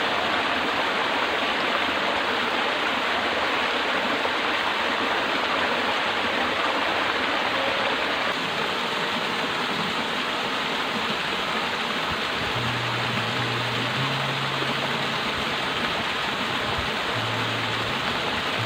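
Water of a rocky stream rushing and splashing steadily.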